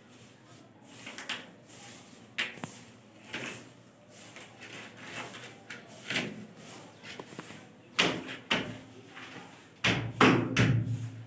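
PVC electrical conduit pipe knocking and scraping against a brick wall and loose brick rubble as it is held and positioned: a series of irregular knocks and clatters, the loudest cluster near the end.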